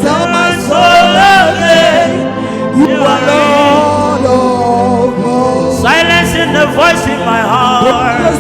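Live gospel worship music: a voice singing long, wavering, sliding ad-lib phrases without clear words over steady sustained backing chords.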